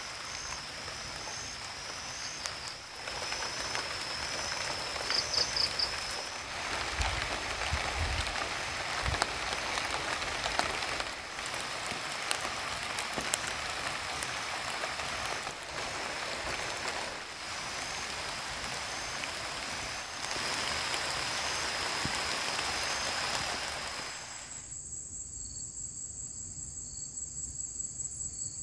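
Steady rain, a hiss dotted with pattering drops, with a high insect trill running under it. The level shifts abruptly a few times. Near the end the rain sound stops and only the insects' steady trill is left.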